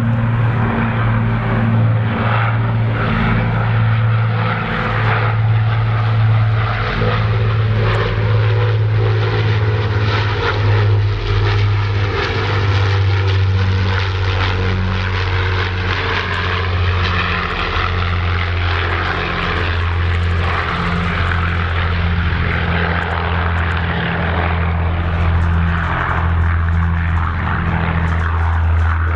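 Avro Lancaster bomber's four Rolls-Royce Merlin V12 engines droning in a low pass overhead. The low, pulsing engine note holds steady in loudness and drops slightly in pitch around the middle as the aircraft passes and flies away.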